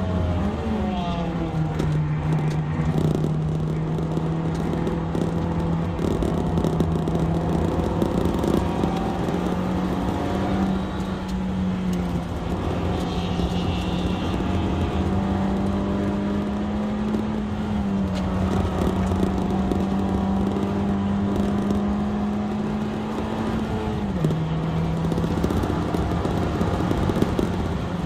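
Honda Fit Hybrid RS's four-cylinder engine running hard at sustained high revs while lapping a circuit, its note holding steady for long stretches, dropping in pitch about three quarters of the way through and again at the very end, over constant road and wind noise.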